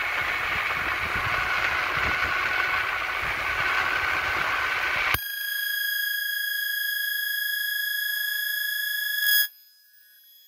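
Wind and road rush on an action camera moving fast downhill. About halfway through it cuts off abruptly and is replaced by a steady, high electronic tone with several pitches. The tone stops about a second before the end, and a short click follows.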